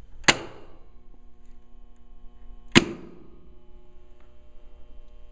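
Electrical lighting contactors pulling in with two loud clacks, a couple of seconds apart. A steady mains hum from the energised contactor coils starts after the first clack and gets stronger after the second.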